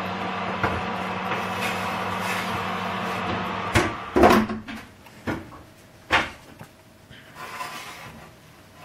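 Oven door swung shut with a clunk about four seconds in, over a steady hum. Two more sharp knocks follow as the oven door is opened again and the metal baking tray is handled.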